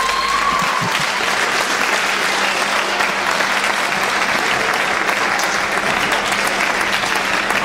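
Crowd applauding steadily as a fighter is declared the winner.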